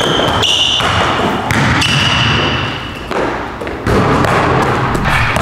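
A basketball thudding on an indoor court, with sneakers squeaking on the floor: short squeaks near the start and a longer one about two seconds in.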